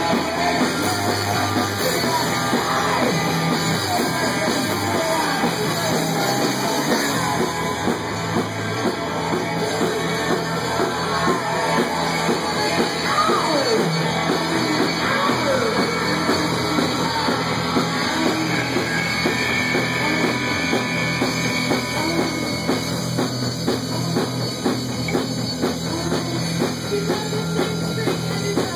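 Live punk rock band playing a song, with a drum kit.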